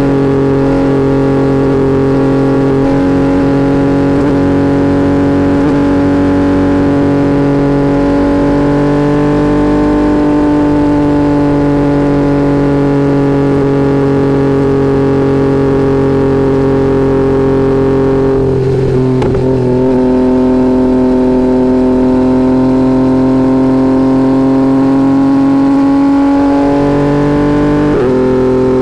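2022 Yamaha XSR900's 890 cc inline-triple engine running at steady cruising revs through a Kelpi full exhaust with a shorty muffler and no baffle, heard from under the seat. About two-thirds of the way in the note breaks at a gear change and settles lower, and near the end the revs jump up.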